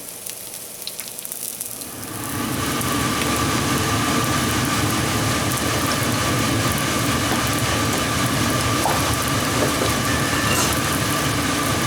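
Cornbread batter frying in hot oil in a pan: a loud, steady sizzle that starts about two seconds in as the batter goes into the pan. The oil is too hot.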